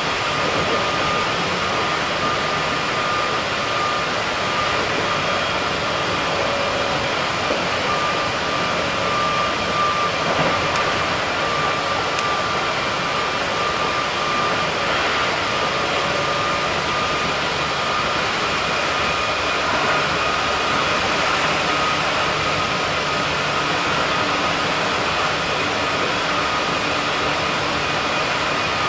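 Keikyu 1700 series electric train running at steady speed: a continuous rumble of wheels on rail with a constant high whine.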